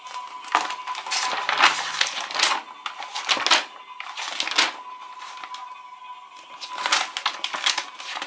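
Glossy magazine pages rustling and crinkling as they are handled and turned, in several irregular bursts.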